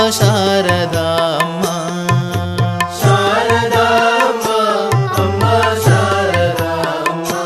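Indian devotional music: a melody with sliding ornaments over a steady drone, with a tabla keeping rhythm in the low register.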